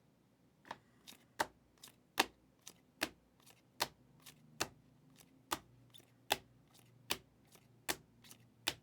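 Trading cards being laid down one after another: sharp taps about every 0.8 seconds, with fainter clicks between them.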